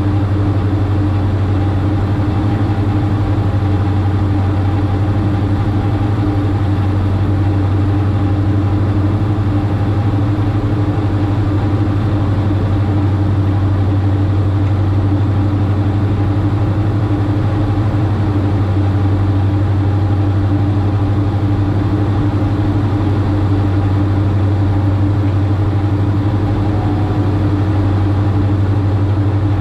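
Twin Austro AE300 diesel engines and propellers of a Diamond DA42-VI in cruise flight, heard inside the cockpit as a loud, unchanging drone: a deep steady hum with fainter steady higher tones above it.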